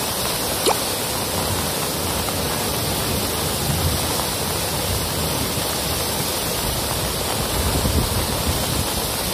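Rain-swollen stream in flood: muddy water rushing and churning with a steady, unbroken noise.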